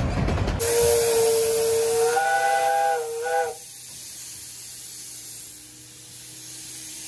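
A 15-inch gauge steam locomotive's whistle blown for about three seconds, turning to a fuller, slightly higher tone partway through and cutting off abruptly. Steam then hisses from the locomotive as it pulls away.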